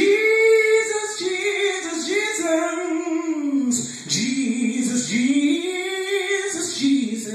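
A man singing gospel solo, holding long drawn-out notes that slide up and down in pitch.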